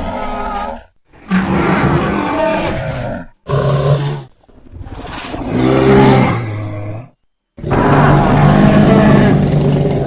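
Custom sound-effect roars for the armoured dinosaur Euoplocephalus: a string of low, pitched roars and growls, each lasting from under a second to about three seconds, broken by short silences, with the longest near the end.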